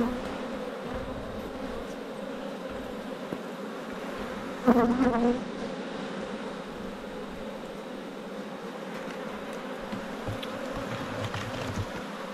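Honeybees buzzing steadily over an open hive. About five seconds in, one buzz swells briefly louder, with its pitch bending.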